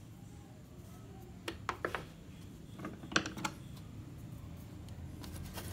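A few light, sharp clicks and taps in two short clusters, about one and a half seconds in and again around three seconds in, over a low steady hum.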